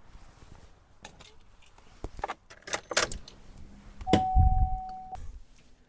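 Sharp clicks and knocks of plastic door trim being handled and snapped into place on a car door. About four seconds in comes a heavy thump, and with it a single steady electronic beep lasting about a second.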